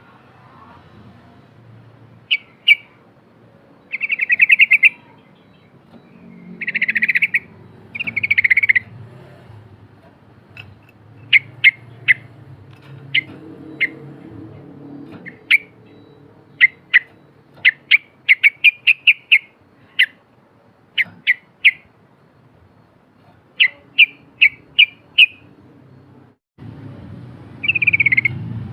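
Yellow-vented bulbul singing: a few short trilled phrases, then quick runs of sharp chirps in irregular bursts. A faint low hum sits underneath and grows louder near the end.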